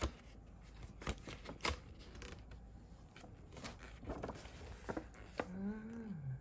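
Light clicks, taps and rustles of a snack box and its paper packaging being handled. A short murmured voice falls in pitch near the end.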